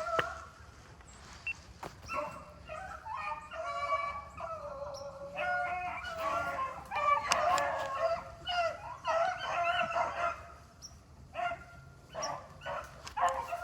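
A pack of rabbit hounds baying on a rabbit's trail: several dogs calling at once, starting about two seconds in and going on nearly to the end.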